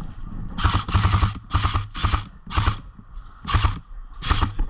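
Footsteps crunching through dry leaf litter and twigs on a woodland floor. Each step lands as a low thud with a crackly rustle, about two a second, with a short pause near the middle.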